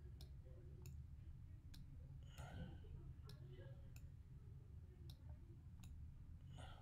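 Faint, sharp computer mouse clicks, about one a second, as a slider is pressed and dragged on screen, over a low room hum.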